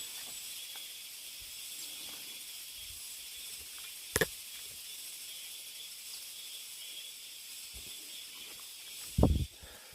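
Steady chorus of cicadas, a high buzzing hiss. A sharp click about four seconds in and a heavier low thump near the end: footsteps on the forest floor.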